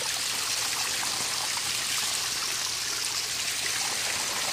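Garden pond waterfall: water running steadily over the rocks of the falls.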